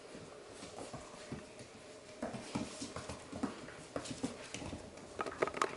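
Several Labradoodle puppies scampering and playing, their claws clicking and pattering irregularly on a hard floor, with scuffling. The sharpest clicks come near the end.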